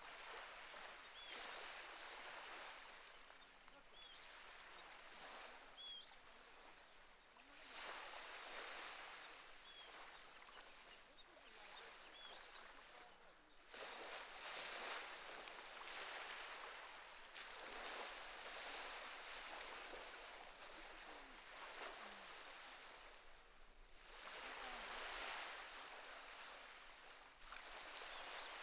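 Faint small waves washing onto a rocky shore, a soft hiss that swells and fades every few seconds. A few faint short bird chirps are heard early on.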